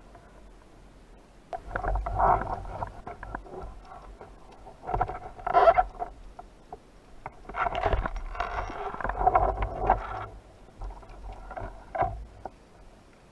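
Water noise from a diver moving in the sea: four bursts of churning and sloshing water, the loudest about halfway through, with quieter stretches between.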